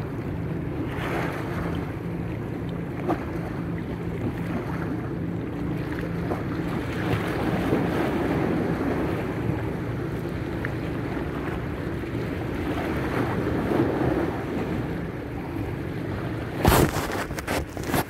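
Wind buffeting the microphone over lapping sea water, with a steady low hum underneath. Near the end come loud rustles and knocks as the camera is handled and covered by clothing.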